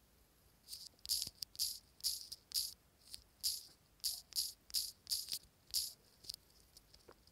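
Typing on a phone's touchscreen keyboard: about fifteen short, crisp key clicks at an uneven pace of two or three a second, stopping shortly before the end.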